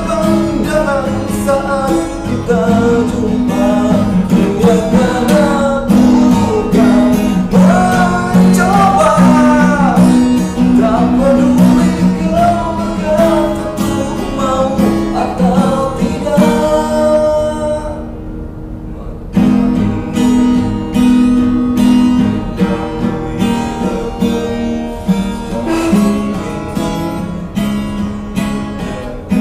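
A man singing while strumming an acoustic guitar. A little past halfway the singing stops and the guitar goes on alone, breaking off briefly before the strumming picks up again.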